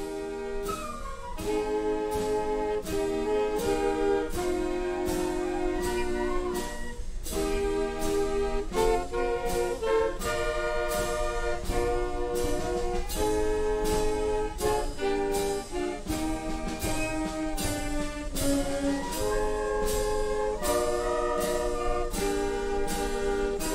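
Processional march played by a brass-led band, with a steady beat of about two a second.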